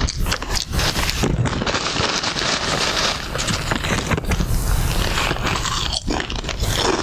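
Loud crinkling of a chip bag and crunching and chewing of chips, a dense run of crackles and snaps.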